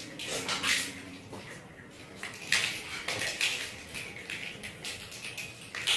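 Big beads clicking and clattering in irregular bursts as kittens bat them around in play.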